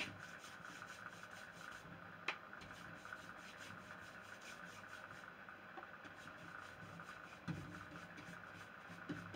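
Faint rubbing of a cloth being worked with Briwax, with a sharp tick about two seconds in and a soft knock about seven and a half seconds in.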